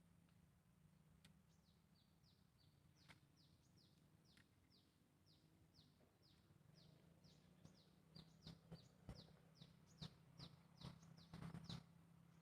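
A bird calling a long, even run of short falling chirps, about three a second, growing louder toward the end. A few sharp clicks come near the end over a faint low hum.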